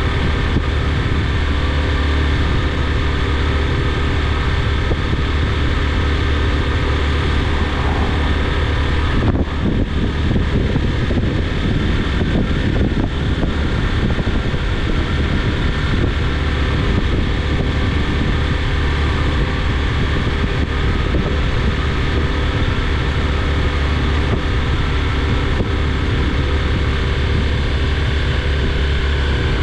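A vehicle engine runs steadily with a constant low hum and road noise as it drives along.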